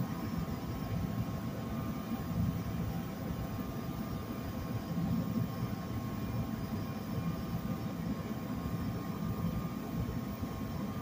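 NJ Transit ALP-46A electric locomotive standing with its equipment running: a steady rush of blower air with a steady whine over it.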